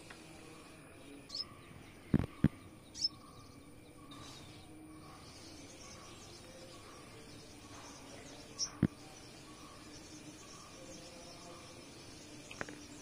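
Quiet ambience with a few short high bird chirps over a steady low hiss, broken by a few sharp clicks, the loudest a close pair about two seconds in and another near nine seconds.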